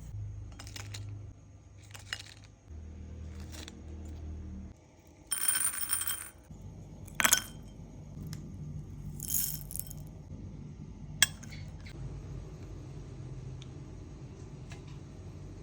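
Kitchen handling sounds: scattered clinks and knocks of utensils and dishes, with two short noisy bursts partway through, over a low steady hum.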